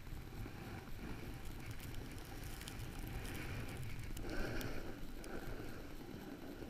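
Wind buffeting the camera's microphone as it rides down a ski slope, over the hiss and scrape of the rider's edges sliding on snow, which grows louder for a moment about halfway through.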